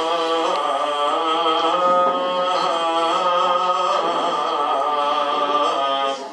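Byzantine chant: a male cantor sings one long phrase of slow, held notes that move gradually in pitch, breaking off near the end.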